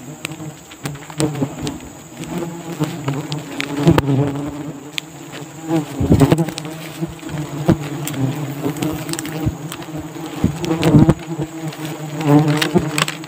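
Wasps buzzing close by, a swarm stirred up around their raided nest: a steady hum that swells loud several times as insects fly past, with light crunching steps on dry leaves.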